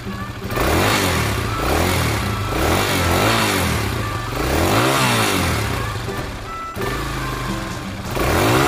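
Motorcycle engine sound effect revving up and down over and over, starting about half a second in after a low steady idle.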